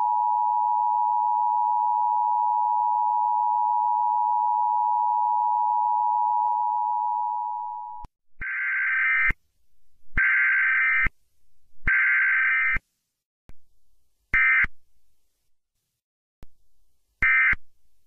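Emergency Alert System broadcast of a required weekly test: the two-tone attention signal sounds steadily for about eight seconds and cuts off. It is followed by three roughly one-second buzzy bursts of the EAS digital data code, then two shorter bursts near the end.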